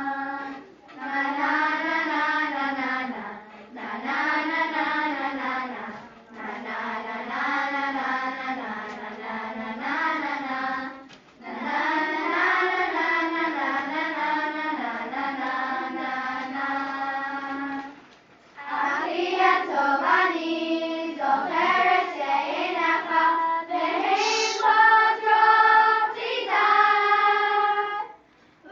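A group of sixth-grade girls singing a song together as a choir, in long phrases broken by short pauses.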